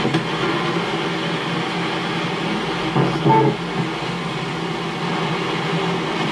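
Ghost boxes, radios rapidly sweeping through stations, mixed with white noise and played through a speaker: a steady hiss of static with brief chopped fragments of radio sound, the clearest about three seconds in.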